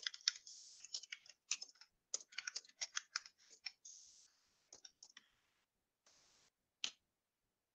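Computer keyboard typing: quick, irregular keystrokes that stop about five seconds in, followed by one louder click near the end.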